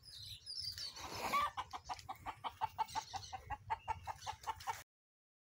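A bird calling: a rising call about a second in, then a fast run of short, evenly repeated notes, about five a second, over a low rumble; the sound cuts off suddenly near the end.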